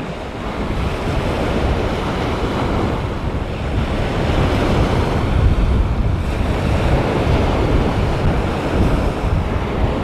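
Strong wind buffeting the microphone, with waves washing onto the beach.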